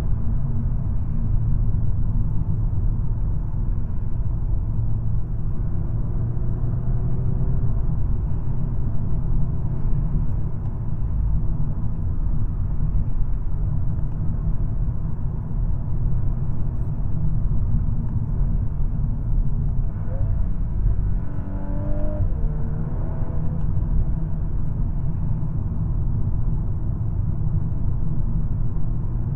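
2022 VW Golf R's 2.0-litre turbocharged four-cylinder engine and tyre rumble heard from inside the cabin while cruising at around 95 km/h in fourth and fifth gear. The engine note rises and falls about two-thirds of the way in.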